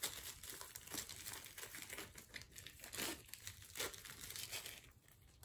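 Clear plastic wrapper crinkling and crackling as it is pulled off a floral foam ball, in irregular handling noises that die away shortly before the end.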